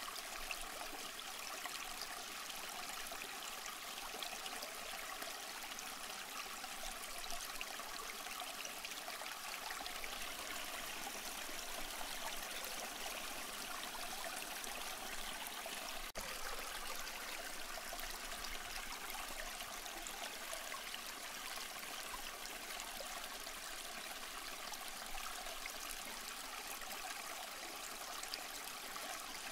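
Flowing stream water, a steady rushing trickle with no change over the whole stretch.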